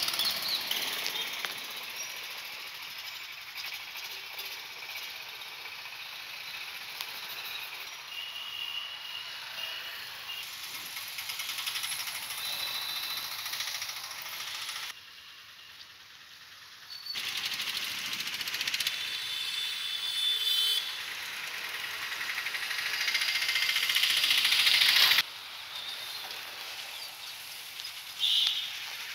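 Street traffic noise with motorcycles and other vehicles passing, heard as a steady hiss with some engine rattle and a few brief high-pitched tones. The sound drops away abruptly for about two seconds halfway through, and again near the end.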